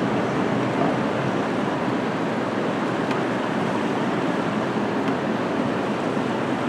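Steady night-time city street noise heard from above: an even, unbroken wash of distant traffic with no single vehicle standing out.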